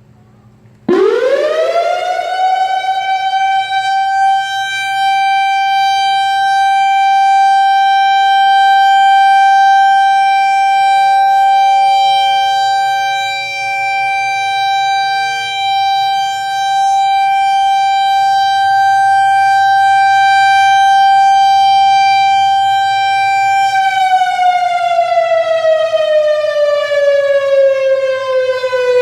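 Whelen WPS-3016 electronic outdoor warning siren (analog model) sounding a short steady alert for a test: it winds up quickly about a second in, holds one pitch for some twenty seconds, then starts falling in pitch near the end.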